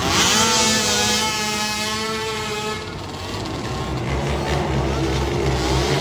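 Youth ATV racing quads' small engines revving hard as they leave the start, a high note climbing in pitch over the first few seconds. The level then dips, and a lower, rougher engine note builds from about four seconds in as the quads run around the dirt track.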